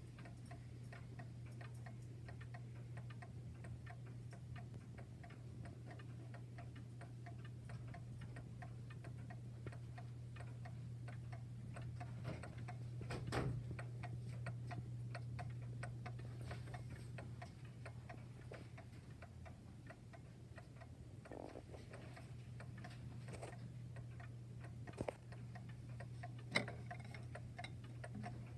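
Antique Seth Thomas mantel clock's mechanical movement ticking steadily, with a few louder knocks in the second half.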